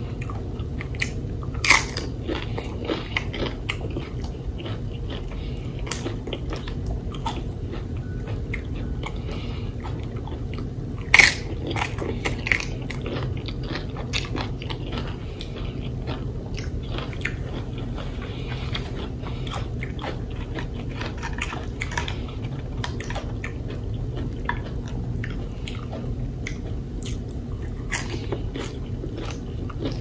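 Close-up crunching and chewing of loaded nachos: tortilla chips cracking between the teeth in many short crisp crunches over a steady low background noise. The loudest crunches come about two seconds in and about eleven seconds in.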